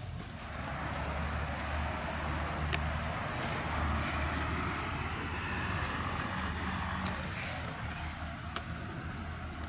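Steady low rumble with a hiss that swells over several seconds and fades again, and a few faint sharp clicks.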